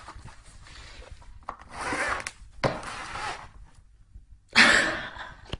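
Cardboard box rubbing and scraping, with a kitten moving about inside it, in several rasping bursts, the loudest near the end.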